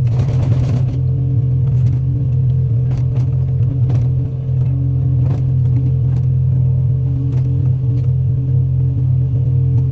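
Heavy equipment engine running steadily at a constant pitch, with scattered short knocks over it.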